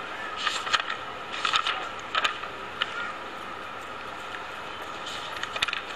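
Pages of a thick book being leafed through, paper rustling a few times over a steady hiss of recording noise.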